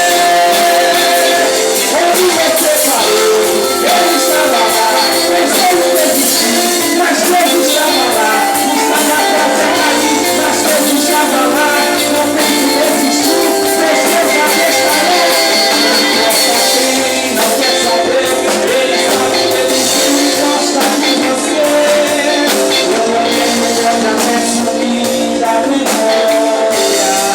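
Portuguese-language worship song: a voice singing over band accompaniment with a steady beat.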